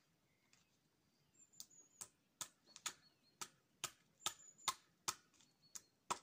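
Hammer driving nails through plastic sheeting into a post: a steady run of about a dozen sharp strikes, roughly two a second, starting about a second and a half in.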